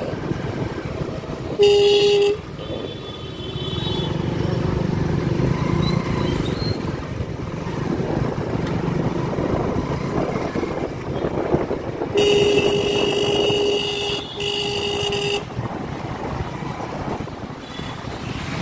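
Motorcycle riding through busy city traffic, with engine and road noise throughout. A vehicle horn honks three times: a short toot about two seconds in, then a longer blast and a shorter one around twelve to fifteen seconds in.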